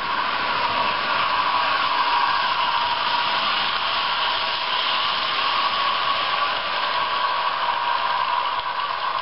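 Märklin H0 model train rolling past, a steady whirring noise of the wheels on the track.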